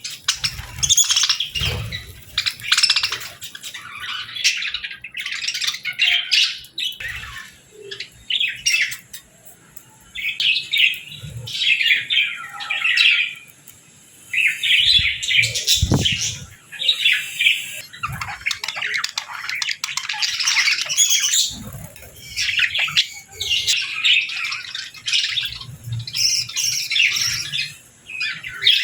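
Flock of budgerigars chirping and chattering in bursts of warbling calls, with short lulls in between.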